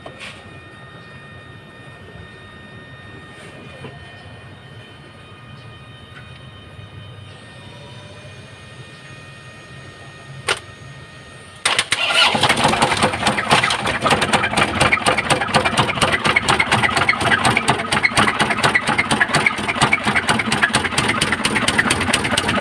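An Isuzu 4JB1 2.8 diesel engine, its starter jumped straight from the battery cable, catches suddenly after a sharp click and runs loud with a rapid knock. The mechanic judges the knock to be more than an injector fault: the engine has given out inside and needs a general overhaul.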